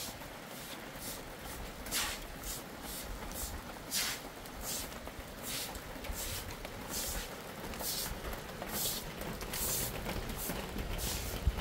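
Straw broom sweeping rainwater across wet, muddy packed-earth ground: a run of short swishing strokes, nearly two a second.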